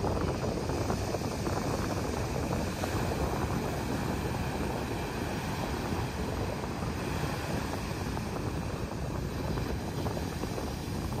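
Rough, storm-driven sea surf breaking on a beach, mixed with strong wind rumbling on the microphone: a steady low noise with no distinct breaks.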